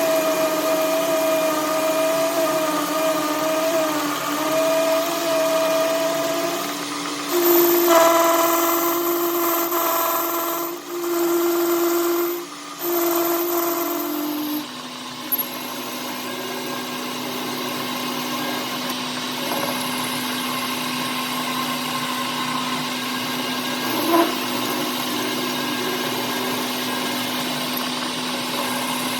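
Power-tool motor running steadily with a constant hum. Its tone changes a few times, it dips briefly twice around the middle, and it then settles into a lower steady run. There is one short knock near the end.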